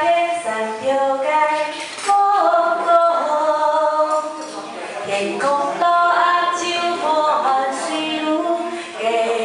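A woman singing a slow Hakka song into a handheld microphone, holding long notes and sliding between them.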